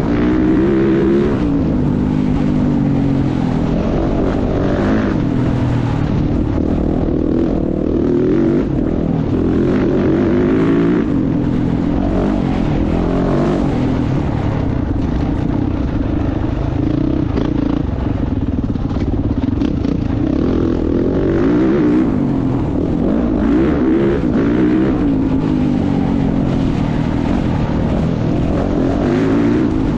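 Dirt bike engine ridden at race pace, its revs climbing and dropping over and over every second or two.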